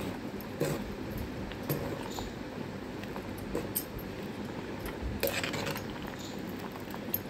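Corn kernels bubbling in a pot of boiling water, stirred with a spoon that clinks against the pot a few times.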